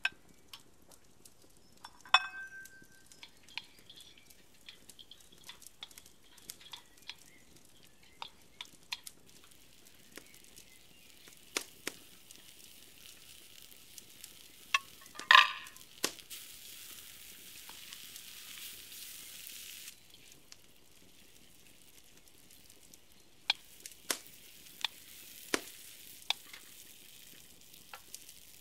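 Vegetables stir-frying in a wok over an open fire, sizzling, with a wooden spatula scraping and tapping the pan. There is a ringing clink about two seconds in and a loud knock about halfway through, after which the sizzle grows louder for a few seconds.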